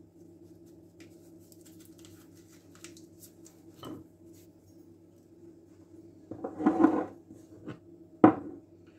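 Small paper sachet crinkling and rustling as ground mastic is shaken out of it over a bowl of flour. About two-thirds of the way through, a louder clatter of a bowl being handled on the wooden worktop, then a sharp knock near the end, over a faint steady hum.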